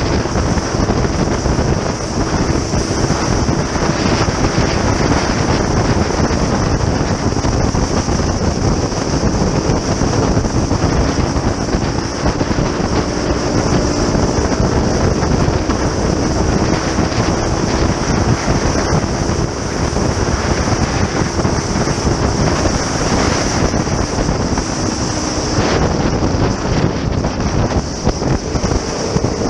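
Heavy wind buffeting on the microphone of a motorcycle moving at road speed, with the bike's engine running steadily underneath. The engine's pitch drifts gently up and down.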